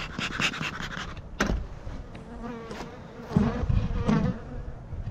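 Honey bees buzzing around an opened hive, one flying close enough to give a wavering wing drone. A single sharp knock comes about a second and a half in.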